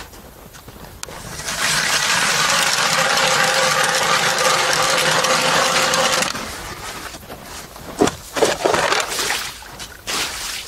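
Hand-cranked ice auger drilling through lake ice: a steady grinding scrape of the blades cutting ice that starts about a second and a half in and stops about six seconds in. A few short knocks and scrapes follow near the end.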